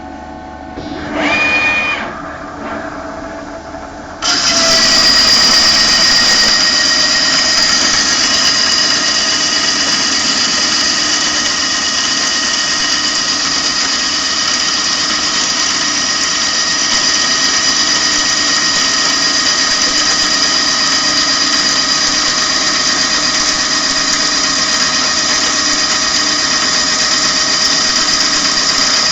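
Heavy Okuma CNC lathe turning a 200 mm workpiece: a brief rising whine about a second in, then the tool enters the cut about four seconds in and the machine settles into a loud, steady cutting noise with high-pitched ringing tones, under a heavy 5 mm deep cut at 0.28 feed.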